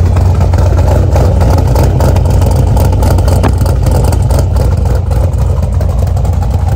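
2010 Chevrolet Camaro SS's 6.2-litre V8 idling, a loud, steady exhaust rumble heard from behind the car.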